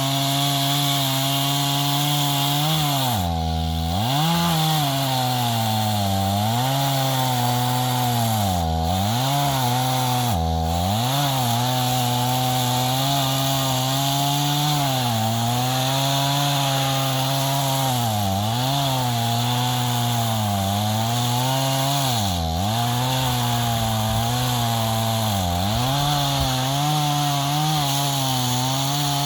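Two-stroke chainsaw cutting oak logs: the engine runs at high revs, and its pitch dips repeatedly every few seconds as it bogs down in the cut and then recovers, most deeply about three and a half seconds in.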